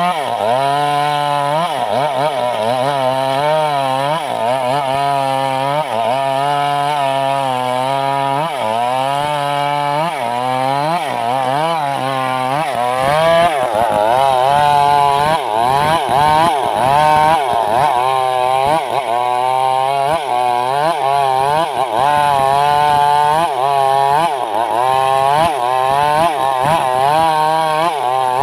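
Stihl MS 382 two-stroke chainsaw ripping wood lengthwise under load. The engine pitch repeatedly dips and recovers as the chain bites and frees.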